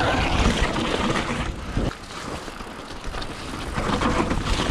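Mountain bike riding down a wet dirt trail: tyres rolling over mud and stones, with the bike rattling over bumps and a low rumble of wind on the microphone. It gets quieter for a moment about two seconds in, then builds again.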